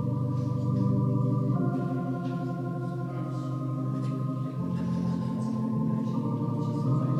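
Organ playing slow, sustained chords, the harmony changing every two to three seconds.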